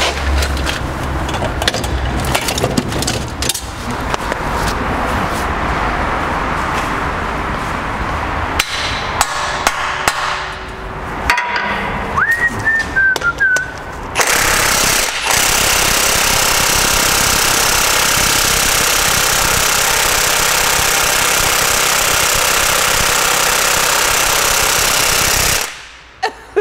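Cordless 20 V impact wrench hammering on the central driveshaft nut at a Volkswagen Passat's front wheel hub. It runs in bursts with short pauses, then in one long unbroken run of about eleven seconds that cuts off suddenly near the end. The rusty nut is hard to shift.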